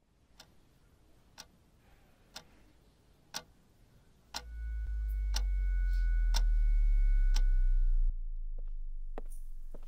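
Quartz wall clock ticking once a second. About four seconds in, a deep low drone swells up under the ticks with a steady two-note high ringing over it, and both cut off suddenly about eight seconds in. After that come quicker, fainter ticks.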